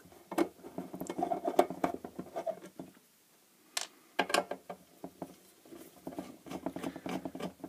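Fingers tapping, scratching and working at the lid of an LED floodlight's driver compartment, with small screws set down on the bench: a run of light clicks and scrapes that stops for about a second around three seconds in, then starts again.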